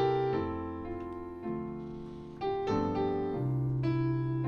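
Digital keyboard with a piano sound playing a slow introduction in held chords. The chords die away about two seconds in, then a new chord comes in and the playing goes on.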